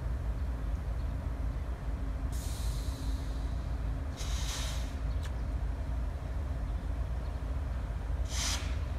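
CSX GE Evolution-series (GEVO) diesel locomotive idling with a steady low rumble, while compressed air hisses out in three short bursts: about two seconds in, about four seconds in, and near the end.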